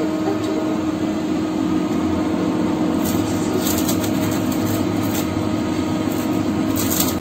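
Prestige induction cooktop running: a steady fan whoosh with a low hum under it. A few short scratchy sounds come around three to four seconds in and again just before the end.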